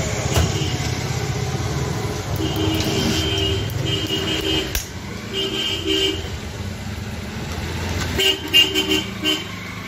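A vehicle horn honking in several short blasts, a few of them clipped and stuttering near the end, over a steady low engine rumble of traffic. There is a single sharp knock just before the middle.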